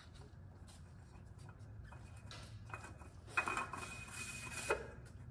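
Faint handling sounds as a new spin-on oil filter is threaded onto the engine's filter mount by hand, with light clicks and one longer scrape about three and a half seconds in, lasting just over a second.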